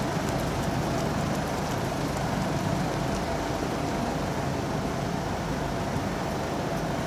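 Steady street traffic noise on wet roads: an even hiss and hum of passing vehicles with a faint steady tone running through it.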